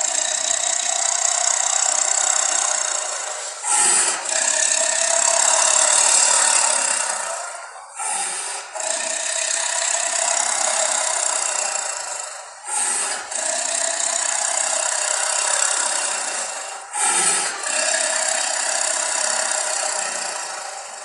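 Saber-toothed tiger sound effect: a series of long, raspy, noisy roars or growls, about five in a row, each lasting about four seconds with short breaks between.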